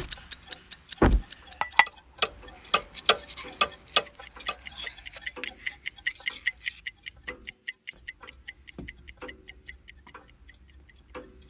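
Many clocks ticking at once, several tick rhythms overlapping into a dense clatter, with one low thud about a second in; the ticking thins out and grows quieter near the end.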